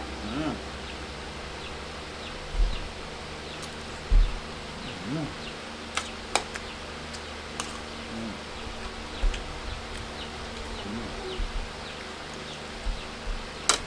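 Spoon and fork clinking and scraping on a plate while eating rice, with a couple of louder soft thumps early on and a faint buzzing that rises and falls in pitch several times.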